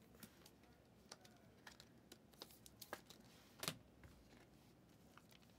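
Near silence with faint, scattered light clicks and taps of hands handling small plastic items, one click a little louder about three and a half seconds in.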